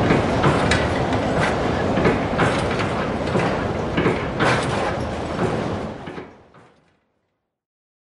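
Windmill mechanism working close up: a steady, dense mechanical rumble and rattle broken by repeated sharp metal clanks at uneven intervals. It fades out about six seconds in and is silent after seven.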